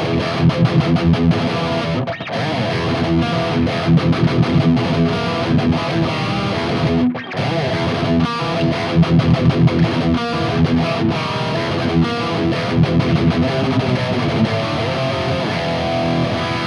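High-gain distorted electric guitar through a Mooer Brown Sound 3 preamp pedal, a 5150-style tone, playing a fast, rhythmic thrash riff. The riff breaks off briefly about seven seconds in.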